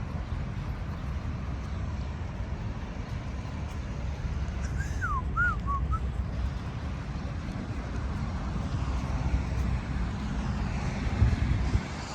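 Steady low outdoor rumble, with a brief call of four short, quick whistled notes about five seconds in and a low thump near the end.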